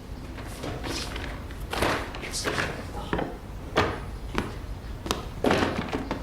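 A run of short, light knocks and taps at uneven spacing, about ten in all, over a low steady hum.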